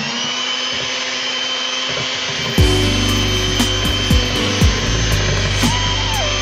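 Electric hand mixer running steadily with a high motor whine as it beats thick cake batter. From about two and a half seconds in, a low rumble and irregular knocks join it as the beaters hit the metal bowl.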